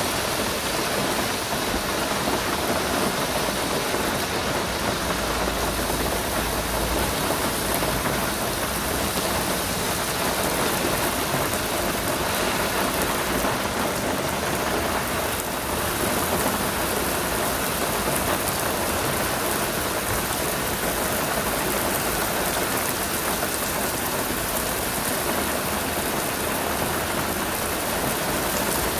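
Steady heavy rainfall, a dense even hiss of drops hitting surfaces, with a brief low rumble about five seconds in.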